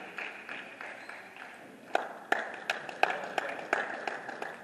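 Table tennis ball clicking off bats and table, a quick run of sharp taps about three a second that starts about two seconds in, over a background murmur of voices in the hall.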